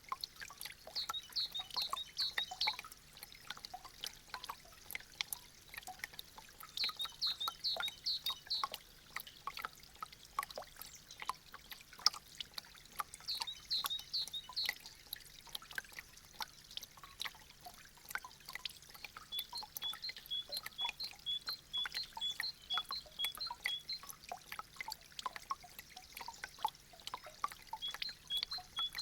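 Meltwater from melting icicles dripping and trickling, a dense patter of irregular drips. A small bird sings short bursts of high chirps several times, with a faster repeated run of notes in the second half.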